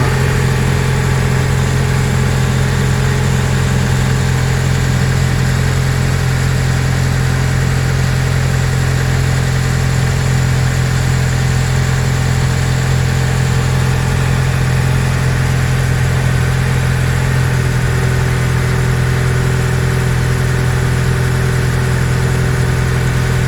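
Nissan Serena C23 engine idling steadily on a fast cold idle, a little over 1000 rpm, with an even hum.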